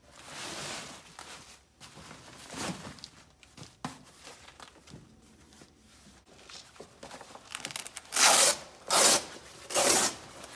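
Smittybilt G.E.A.R. fabric cargo liner rustling and scraping as it is spread out and pulled flat over the cargo floor, with three loud rasping strokes near the end.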